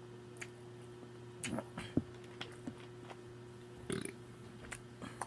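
Small burps and short mouth smacks from a woman eating, coming singly every second or so.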